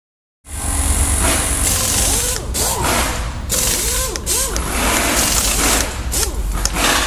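Power tools running loudly, the motor's pitch dipping and rising again several times as if under load, with a few sharp clanks. It starts suddenly about half a second in.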